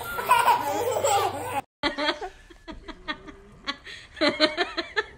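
Toddlers laughing loudly while they wrestle on the floor, cut off suddenly; then short pulses of laughter, in a quick run about four seconds in.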